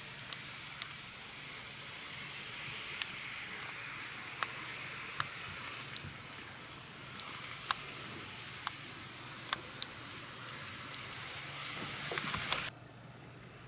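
N-gauge model of a Kintetsu 1252 series train running on its track: a steady hiss of the wheels and motor, with occasional sharp clicks as the wheels pass over track joints. The sound cuts off suddenly near the end.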